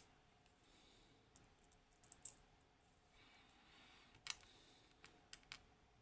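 Tweezers and small metal parts of an Assa Desmo lock clicking and tapping as the lock is taken apart. There are a few sharp clicks, the loudest about two and four seconds in, then a quick cluster of lighter clicks after five seconds, with faint handling rustle between them.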